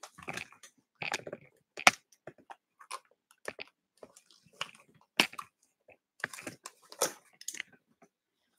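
Small cardboard box being handled and turned over in the hands: scattered light rustles and taps, with a few sharper clicks about 2, 5 and 7 seconds in.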